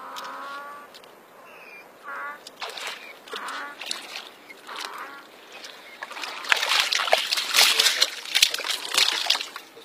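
A hooked brown trout thrashing in shallow stream water as it is landed by hand: a burst of loud splashing and sloshing starts about six seconds in and lasts some three seconds.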